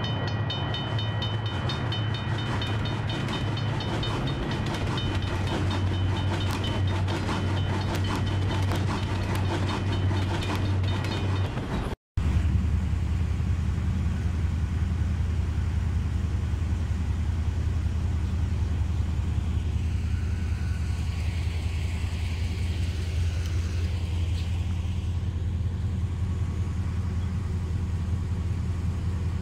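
Railroad crossing bell ringing in a steady, rapid rhythm over a low rumble, cutting off suddenly about twelve seconds in. It is followed by a steady low rumble with no clear source.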